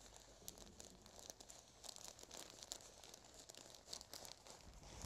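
Faint, scattered rustling of a damp cotton kitchen towel rubbing and folding as a sponge cake is rolled up tightly in it.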